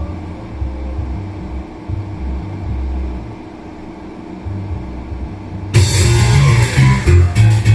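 Muffled low bass pulsing, then about six seconds in a loud karaoke backing track starts abruptly as the song's intro begins.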